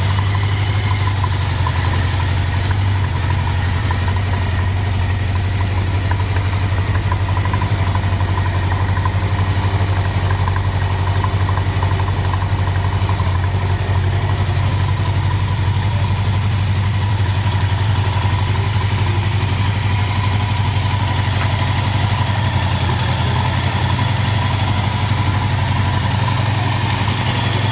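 1993 Honda Nighthawk 750's air-cooled inline-four engine idling steadily, with no revving.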